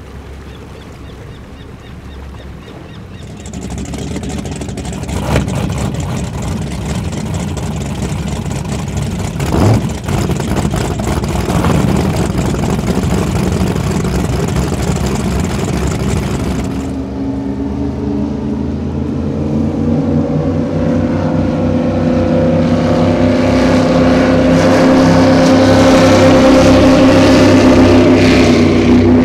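High-performance powerboat engines running as boats pass at speed, with the rush of the hulls through the water. Partway through the sound changes abruptly to a deep, many-toned engine note that grows steadily louder as a boat comes closer, then cuts off near the end.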